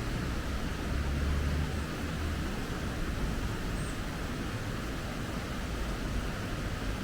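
Steady rushing of river water, with a low rumble that is strongest in the first two seconds or so.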